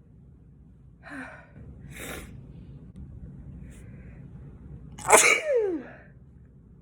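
A person sneezing: two short breathy intakes, then about five seconds in a loud sneeze whose voiced end falls in pitch.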